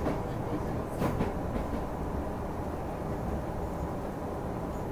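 Oimachi Line commuter train heard from inside the carriage while running at speed: a steady rumble of wheels and car body, with a few sharp clacks about a second in.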